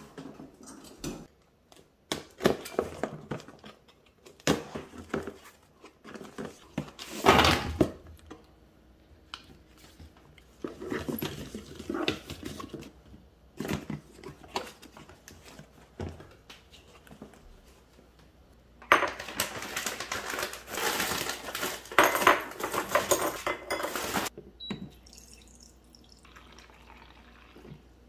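Handling noises from unpacking on a glass-topped table: plastic drink bottles and a cardboard box being picked up, set down and opened, with knocks, clinks and rustling. The loudest part is a denser stretch of about five seconds two-thirds of the way in.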